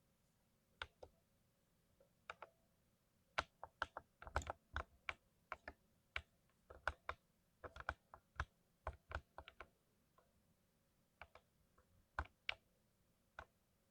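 Keystrokes on a lubed mechanical keyboard: irregular typing, a few scattered presses, then a quick run of keys from about three to nine seconds in, then a few slower presses again.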